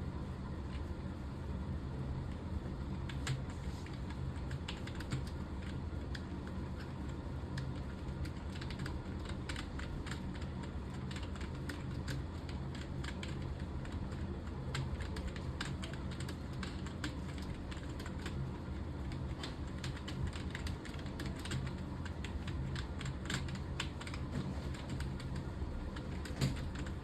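Someone typing on a computer keyboard: an irregular, unbroken run of quick key clicks over a steady low hum.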